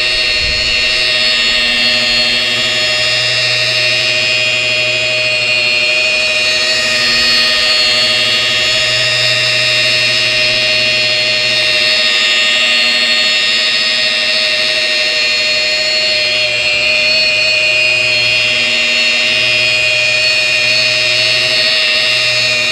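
DeWalt rotary polisher with a wool pad running steadily on wet-sanded paint, a high, even motor whine. Under it a lower hum comes and goes every few seconds as the pad works the surface.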